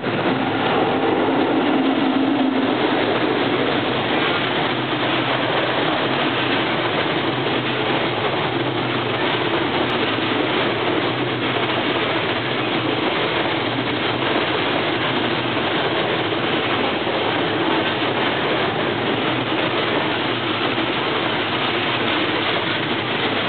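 A freight train hauled by an EF65 electric locomotive running past, with a steady, unbroken noise of wheels on the rails. There is a faint low tone in the first two seconds or so.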